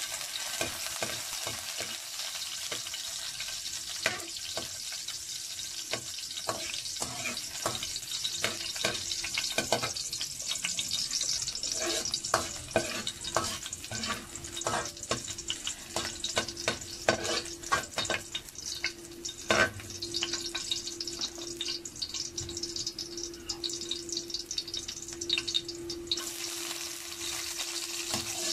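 Chopped garlic sizzling in hot oil in a metal wok, with a metal ladle scraping and clinking against the pan as it is stirred. The sizzle grows near the end as chopped onion goes in.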